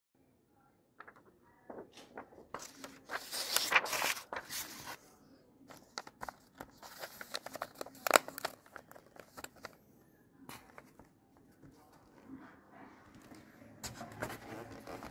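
Paper and masking tape being handled, crinkling and tearing in irregular bursts with sharp clicks, as the vent grille is covered over for priming.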